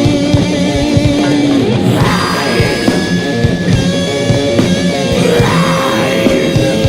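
Thrash/death metal recording: distorted guitars over dense, fast drumming, with long held notes ringing above.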